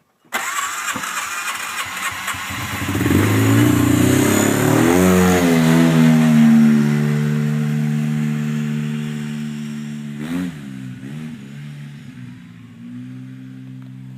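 A Polaris RZR side-by-side engine, which is hard to start, catches suddenly, revs up and then keeps running. Its steady note slowly drops as the revs settle, with a brief stumble about ten seconds in.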